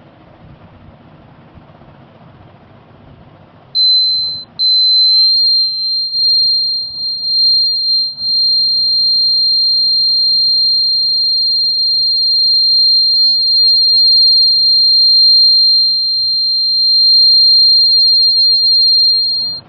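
Homemade fire alarm's buzzer sounding one loud, steady high-pitched tone. It starts about four seconds in, breaks off briefly just after, then holds until it cuts off suddenly.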